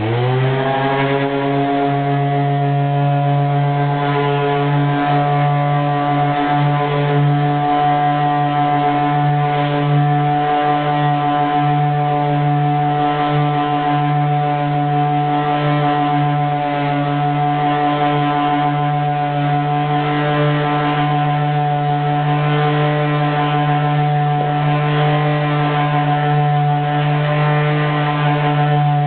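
Random-action sander fitted with a felt buffing pad, starting up and rising in pitch over about a second, then running at a steady hum while it buffs oiled wooden toy-block pieces.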